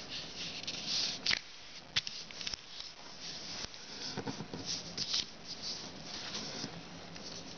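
A sheet of kami origami paper rustling and sliding on a wooden table as it is folded in half and the crease is pressed flat, with a few sharp crackles of the paper.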